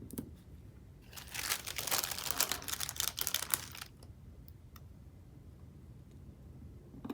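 Paper sticker sheet crinkling and rustling for about three seconds as it is handled, followed by a few faint clicks and a light tap near the end.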